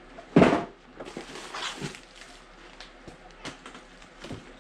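Packaging being handled: scattered soft clicks and rustles, with one short, loud burst about half a second in.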